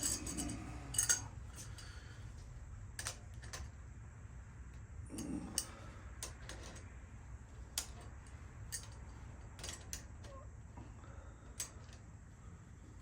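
Irregular light metallic clicks and clinks of small bicycle parts and hand tools being handled during assembly, over a steady low hum.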